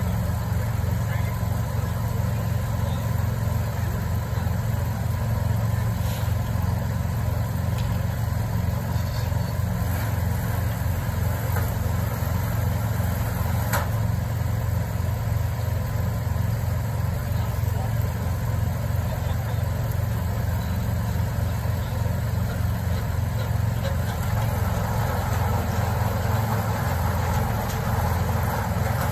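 Christmas tree processing machine running steadily, with a rapid low pulsing, and one sharp knock about 14 seconds in.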